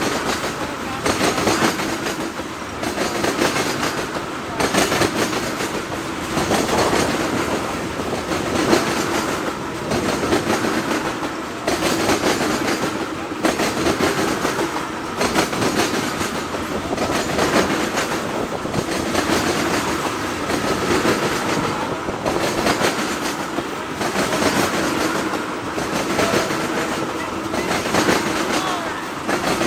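Freight train of tank cars rolling past close by, its wheels clacking in a repeated rhythm over the rail joints over a steady rumble.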